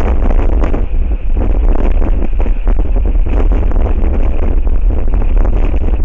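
Strong wind buffeting the microphone: a loud, steady low rumble with a rushing hiss that rises and falls with the gusts.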